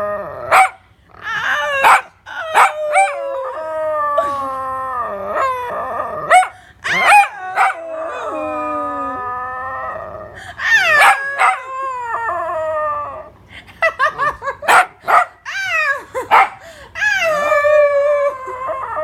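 A dog howling in a series of long, drawn-out calls, each sliding slowly down in pitch, with short sharp yips between them.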